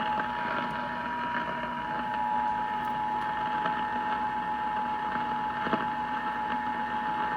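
Emergency Alert System two-tone attention signal broadcast over AM radio: two steady tones sounding together, unbroken, over a haze of radio static.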